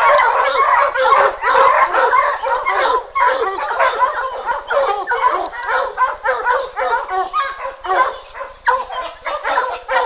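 A pack of Plott hounds barking and bawling over one another without a break, the tree bark of hounds holding game up a tree.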